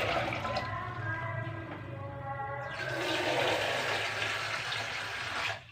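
Water pouring into a cooking pot, a steady rush with a ringing tone in the first half, stopping abruptly near the end.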